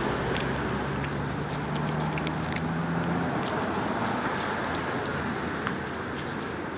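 Petrol lawnmower engine running steadily, with a low hum that fades about three seconds in, and light scattered clicks and rustles over it.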